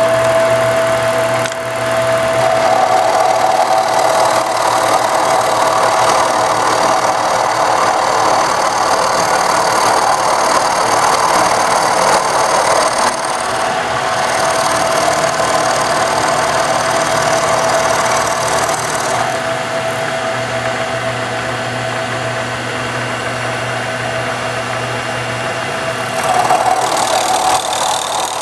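Milling machine running with its end mill cutting into laminated wood, a steady motor whine over the rough noise of the cut. It gets louder briefly near the end.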